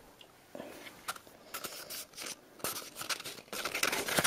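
Paper rustling and scraping as a rolled paper scroll and its ribbon are handled, with the ribbon being slid off. Short scattered scrapes, sparse at first and busier toward the end.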